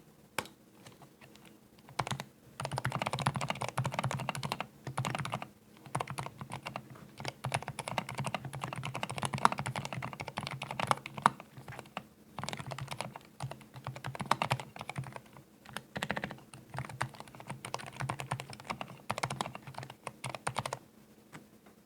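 Fast typing on a newly built Zuoya GMK87 80% mechanical keyboard: a sound test of its keystrokes. Dense runs of clacking keypresses come in bursts with brief pauses and stop about a second before the end.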